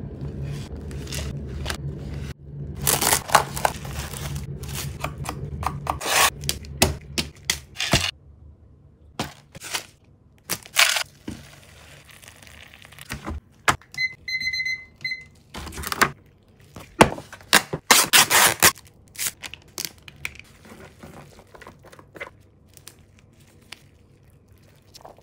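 Instant cup-noodle packaging being handled: plastic wrapping and sachets crinkling and tearing, with clicks and scrapes, and a stretch of water pouring into the cup. A digital kitchen timer beeps for about a second, roughly halfway through. Near the end, chopsticks stir the noodles and a sauce sachet is squeezed.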